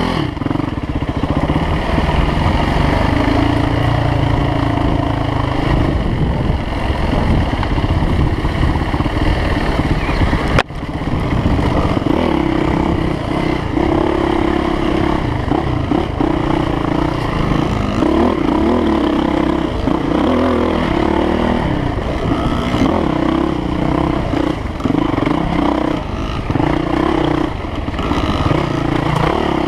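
Off-road dirt bike engine running with the throttle opening and closing as it climbs a forest trail, picked up close by the rider's own action camera. The sound breaks off for an instant about ten seconds in.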